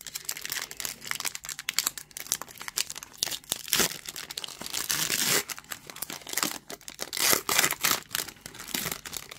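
Trading-card pack wrapper being torn open and crinkled by hand: an irregular crackling with many sharp crinkles.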